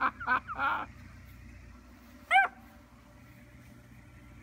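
Beagle puppies yipping in play: a quick run of short high yips in the first second, then one loud single yelp a little past two seconds in.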